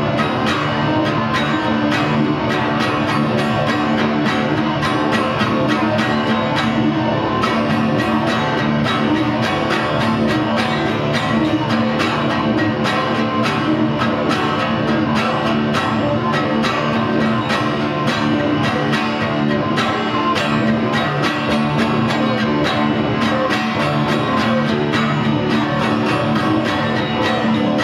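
Steel-string acoustic guitar strummed steadily, with an electric guitar playing along: an instrumental passage with no singing.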